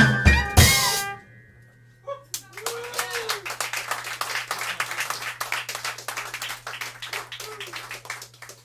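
A jazz quintet of tenor saxophone, trumpet, piano, double bass and drums plays its last notes and cuts off with a final crash about a second in. After a brief hush the audience applauds, with a cheer just after the clapping starts.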